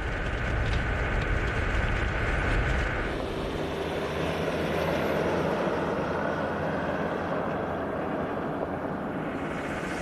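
Land Rover Defender 4x4 driving across a salt flat: steady engine and tyre noise. About three seconds in, a high steady tone and much of the low rumble drop out, leaving a lighter, even drone.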